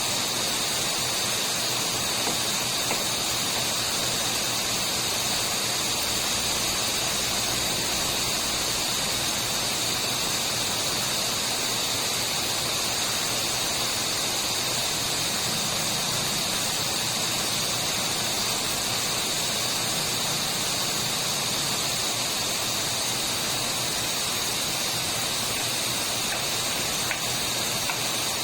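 Steady rain falling: an unbroken hiss that keeps an even level throughout.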